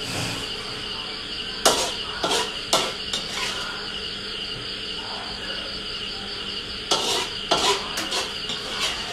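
Metal spatula knocking and scraping against a steel wok during stir-frying: a few sharp clanks about two seconds in, then another cluster near the end. Underneath is a steady high chirring of insects.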